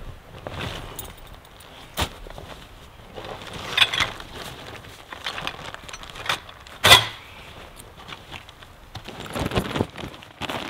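Heavy canvas tent bag and folded canvas tent rustling and flapping as they are pulled out and dropped onto snow, with several sharp knocks, the loudest about seven seconds in. Boots crunching in snow near the end.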